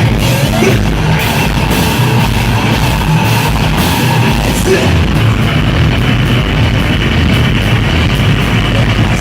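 Live heavy rock band playing loud, with distorted electric guitars and drums.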